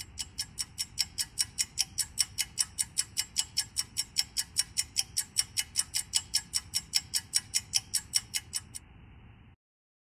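Fast, even ticking, about four ticks a second, sharp and high, which stops near the end.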